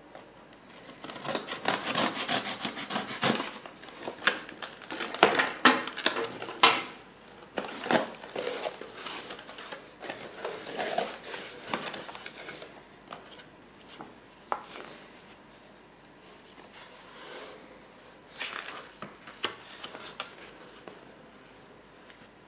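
Cardboard parcel box being opened by hand: flaps and packing tape rubbing and tearing, then paper leaflets and a brochure rustling as they are lifted out. The handling is busiest and loudest in the first several seconds, then thins to lighter rustles.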